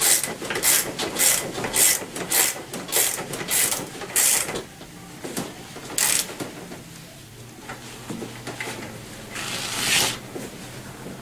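Ratchet wrench tightening a scooter's front axle nut: quick, regular clicking strokes about twice a second, slowing and stopping about four seconds in, with a few single strokes later.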